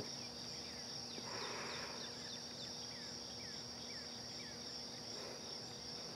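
Steady, high-pitched chorus of crickets, with short falling chirps scattered through the first few seconds and a soft breath about a second in.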